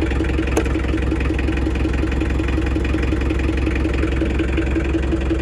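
Bobcat 743 skid steer's diesel engine idling steadily, with one sharp click about half a second in.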